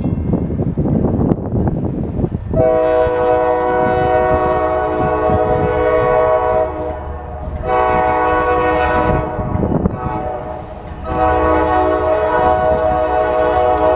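Air horn of an approaching Norfolk Southern freight locomotive sounding a chord in three blasts: a long one starting about two and a half seconds in, a shorter one, then another long one that is still sounding at the end. The low rumble of the oncoming train runs underneath.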